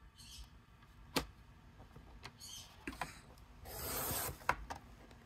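Sliding paper trimmer cutting paper: a sharp click about a second in, a few light knocks, then the blade slider rasping along the cut for under a second near the end, followed by another sharp click.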